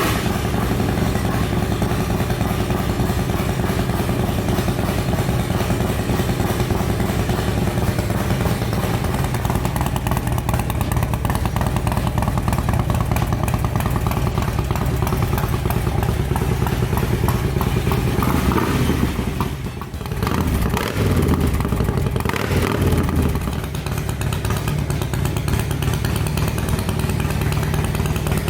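2005 Harley-Davidson Road King's V-twin engine running at idle just after starting, revved up and down a few times about two-thirds of the way in.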